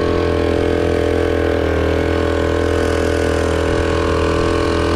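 Small 4-horsepower Chinese outboard motor running steadily, pushing a canoe along at about 6 mph on a speed run.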